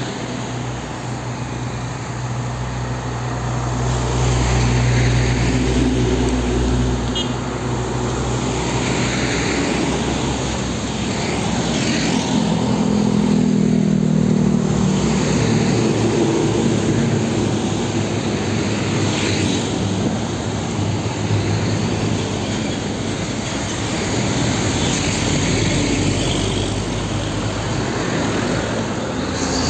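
Heavy diesel trucks driving past one after another: engines running and tyres on asphalt, the engine note swelling and fading as each truck goes by.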